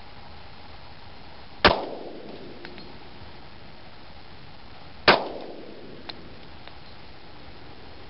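Two 10mm pistol shots from a stock Glock 20 SF, about three and a half seconds apart, each followed by a short echo trailing off.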